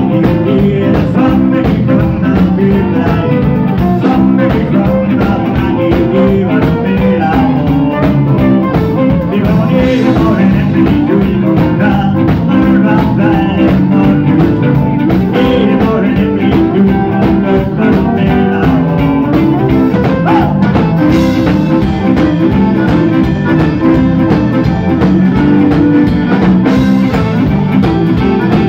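Live Cajun dance band playing: a diatonic button accordion leads over fiddle, electric bass and drum kit, with a steady, even beat.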